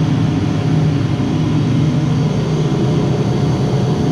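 Steady machinery drone with a low hum and a few faint steady tones above it, the kind of background made by equipment running in a chilled-water plant room.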